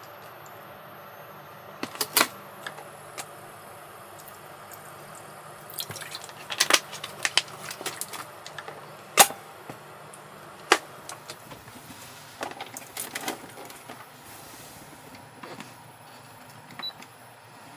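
Scattered clicks and light knocks, like small objects being handled and set down, over a low steady hum.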